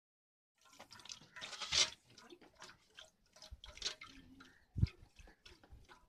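Something poured from a bowl into a steel bucket, with irregular pattering and light clinks of steel vessels, loudest in a rush under two seconds in. A single heavy knock comes near the five-second mark.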